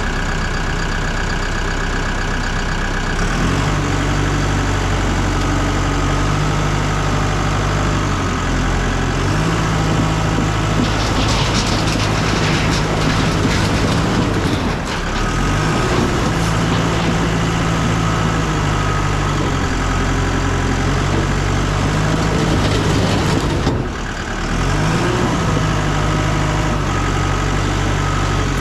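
Bulldozer's diesel engine working hard, its pitch stepping up and down again and again as it pushes under load. A few seconds of crackling noise rise over it about twelve seconds in.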